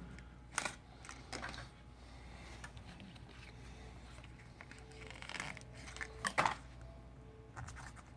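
Business card being worked back and forth under a Samsung Galaxy S6's glass display, scraping through the heat-softened screen adhesive: irregular short scratchy rasps and clicks, the loudest about six and a half seconds in.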